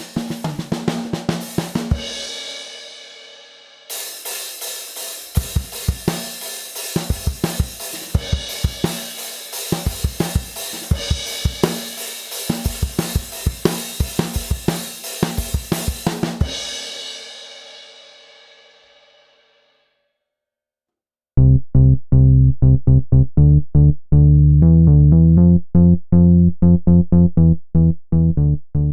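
Zildjian 14" A Series Rock hi-hats played in drum grooves with kick and snare on a Yamaha Beech Custom kit. The cymbals are left ringing and fade out over several seconds. About 21 seconds in, loud electronic music with a heavy bass beat begins.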